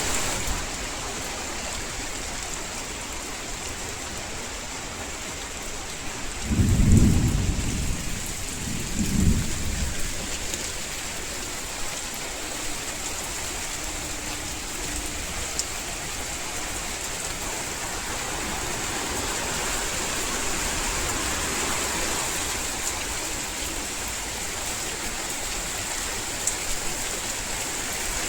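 Heavy rain falling steadily, with two short low rumbles of thunder about seven and nine seconds in.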